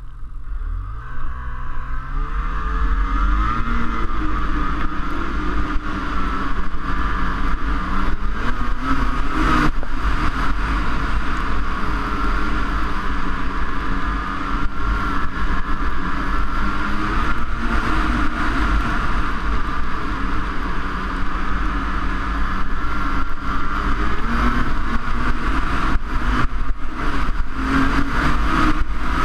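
Snowmobile engine pulling away and revving up over the first few seconds, then running at speed along the trail with its pitch rising and falling as the throttle changes, heard from the rider's helmet.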